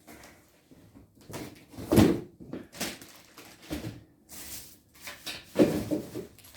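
Parts being set down and handled: a few separate knocks and thuds, the loudest about two seconds in and again near the end, with rustling scrapes between them.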